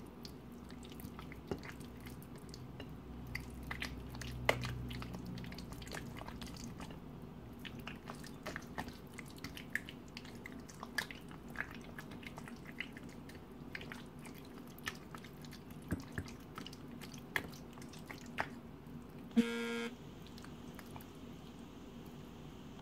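Soft wet squishing and small clicks of hands rubbing marinade into raw chicken lollipops on a plate, over a faint steady hum. About nineteen seconds in, a short buzzing tone sounds for about half a second.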